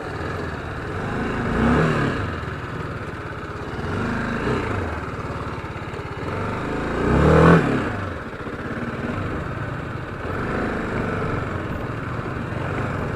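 Motorcycle engine revving up and falling back about four times while riding slowly on a dirt track, the loudest rise about halfway through.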